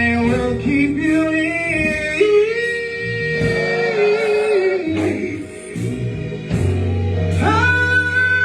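Live gospel music: a choir and a lead singer holding long, sliding notes over a band with a steady beat.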